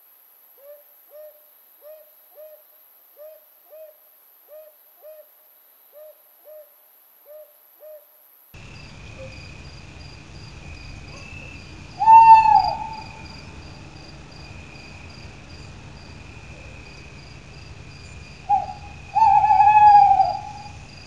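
Owl-like hooting: soft notes in pairs, repeating about every second and a half. Then a steady night-time bed of insect-like trilling, with two loud falling hoots, one about halfway through and one near the end.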